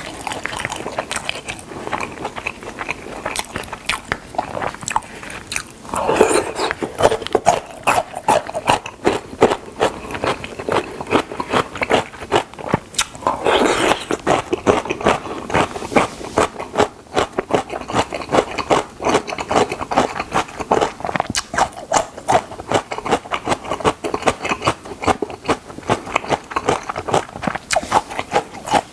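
Close-miked mukbang eating sounds: biting into and chewing crispy fried chicken drumsticks, a continuous run of crunching clicks and wet chewing, with heavier crunchy bites about six and about thirteen seconds in.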